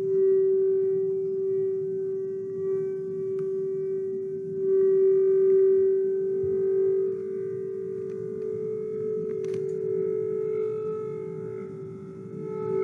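Singing bowls ringing with a long, steady, pure tone that swells and fades, a second slightly higher tone joining about eight seconds in, and a light tap about nine and a half seconds in.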